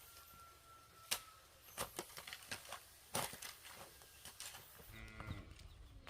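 A few light, scattered clicks and knocks, the sharpest about a second in, over a faint steady high tone that fades out about a second and a half in.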